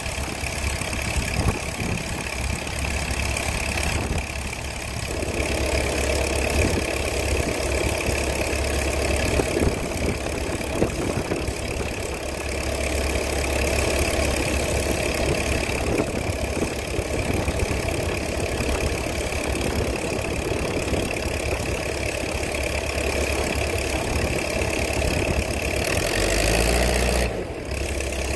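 Combine harvester's engine and machinery running steadily while harvesting soybeans, with a brief shift in the sound near the end.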